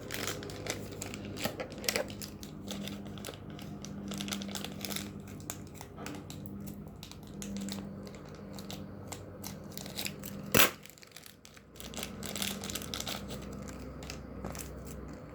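Toy packaging being crinkled and torn open by hand: an irregular run of crackles, rustles and small clicks, with one sharp loud click about ten and a half seconds in.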